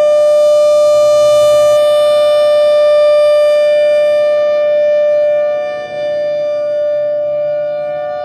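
Federal Signal Thunderbolt 1000A outdoor warning siren, a three-phase unit with a 5M blower, sounding a loud tone that holds one steady pitch. Its loudness dips briefly about six seconds in.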